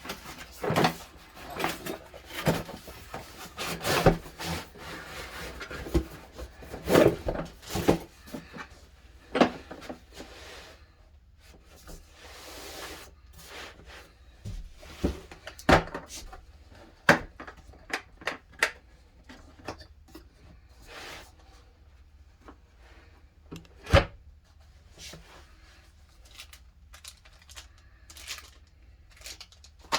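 Hands unpacking a pipe extender tool kit: irregular knocks and clicks from the tool and its case being handled, with rubbing and scraping of the packaging. Busiest in the first ten seconds, sparser afterwards, with one sharp knock later on.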